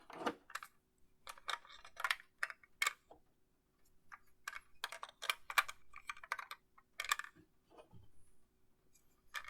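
Small plastic toy gears being handled and clicked into the slots of a Zenkai Buckle toy belt buckle: many small, irregular plastic clicks and taps.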